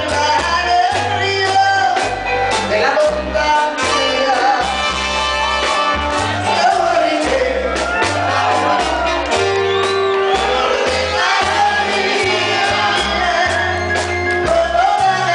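Live band music with a woman singing lead over a bass line that moves from note to note and steady percussion.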